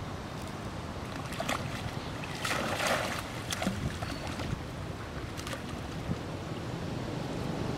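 A long-tailed macaque plunging into a pond with a splash about two and a half seconds in, then a few smaller splashes as it swims, over steady low wind rumble on the microphone.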